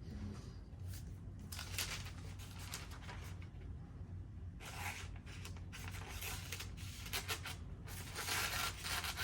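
A dull factory-edge knife blade drawn through thin phone book paper in several strokes, the paper snagging and tearing with a rasping rustle instead of slicing cleanly. A low steady hum runs underneath.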